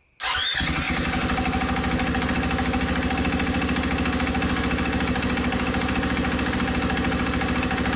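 KTM 500 EXC-F single-cylinder four-stroke engine starting about a quarter second in and then idling steadily with an even, rapid beat.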